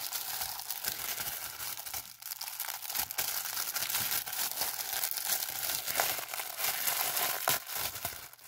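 Clear plastic packaging bag crinkling and rustling as it is handled and opened, with many sharp crackles.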